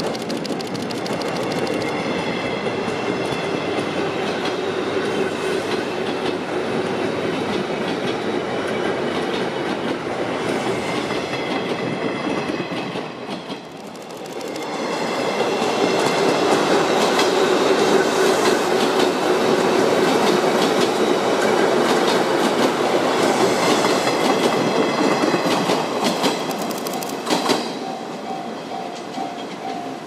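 JR West 201 series thyristor-chopper electric train running past, its wheels clacking over the rail joints, while a Japanese level-crossing warning bell rings. About halfway the sound dips briefly, then comes back louder as the train passes close, and it fades near the end as the train pulls away.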